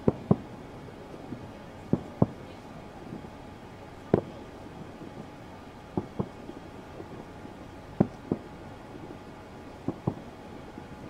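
Aerial fireworks bursting: sharp bangs roughly every two seconds, mostly in quick pairs, over a steady low background rumble.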